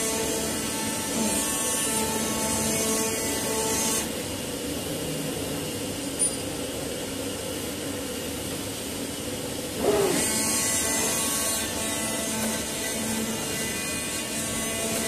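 Acctek AKZ1515 oscillating-knife CNC cutting machine running while it cuts PU leather: a steady buzzing whir with several held tones from the vibrating blade and drive motors. The sound dulls about four seconds in, and about ten seconds in it rises in pitch and comes back louder.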